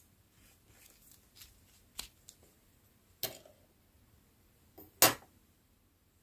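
Handling of a small collaged notebook: light paper rustles and a few sharp clicks and taps as the pages are held and pressed, the loudest tap about five seconds in.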